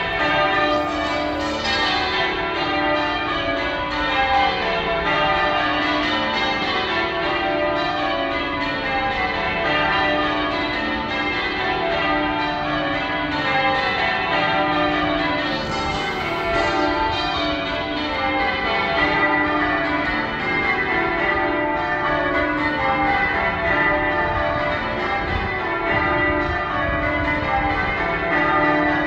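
The church bells of Manchester Cathedral being rung in English change ringing: a continuous, even stream of overlapping bell strokes.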